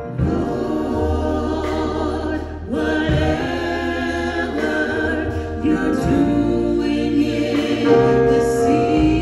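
Gospel choir singing a slow song over a steady bass accompaniment.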